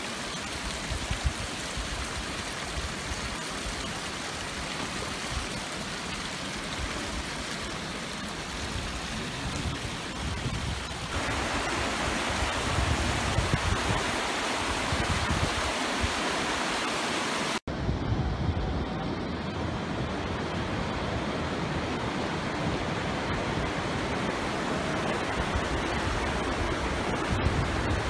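A shallow, rocky mountain river rushing over stones: a steady hiss of water, loudest for several seconds in the middle. Before and after, a similar but softer rushing noise continues across abrupt cuts.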